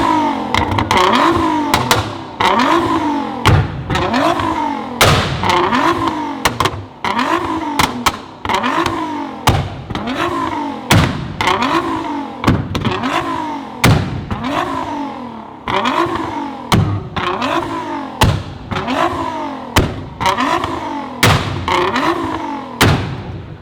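Tuned Nissan GT-R R35's twin-turbo V6 revved in quick short blips, about one a second. Each blip rises in pitch and ends in sharp exhaust pops and bangs.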